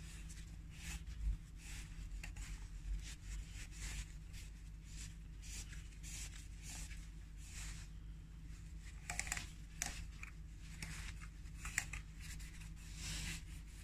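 Paper towel rustling, tearing and rubbing in short irregular strokes as old engine oil is wiped off, over a faint steady low hum.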